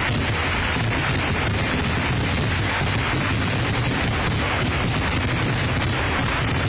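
Unbroken barrage of firecracker blasts from a ground-level fireworks display, the bangs too close together to count, with deep booms underneath.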